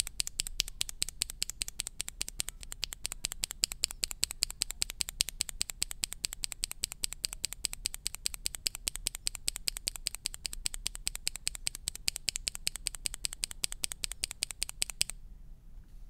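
A Royal Kludge (RK) red linear mechanical keyboard switch with a PBT keycap, pressed over and over by a finger. It gives a steady run of sharp, bright keystroke clicks, several a second, which stop about a second before the end.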